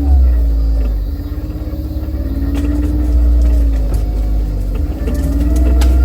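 Vehicle running while driving: a heavy low rumble under an engine note that slowly rises and falls, with a few sharp ticks.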